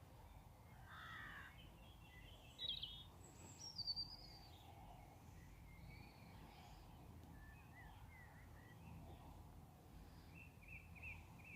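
Faint birds calling: scattered short chirps and calls, the loudest a few seconds in, and a quick run of repeated high notes near the end, over a low steady rumble.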